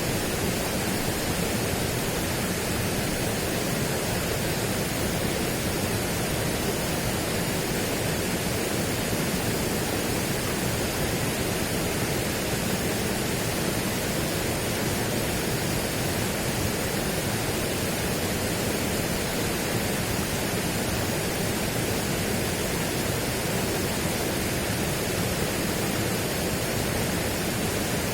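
Steady, even rushing noise spread across low and high pitches, with no surges, tones or separate events.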